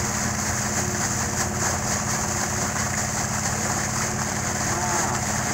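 An engine running steadily, driving the well-cleaning setup, while muddy water gushes hard from a discharge pipe and splashes into the grass.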